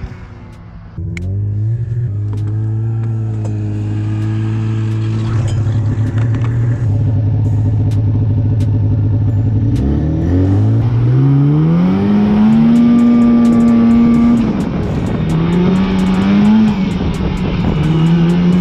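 Polaris Indy 550cc two-stroke snowmobile engine heard from the rider's seat, running at a steady pitch, then revving up in a rising whine about ten seconds in as it picks up speed. It holds high, eases off briefly, and picks up again near the end.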